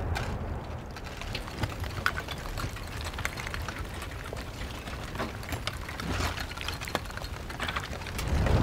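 Lava flow crackling: many scattered sharp cracks and clicks over a faint low rumble.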